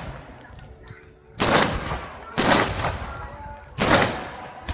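Aerial firework shells bursting: three loud booms about a second apart, the first about a second and a half in, each trailing off in a short echo.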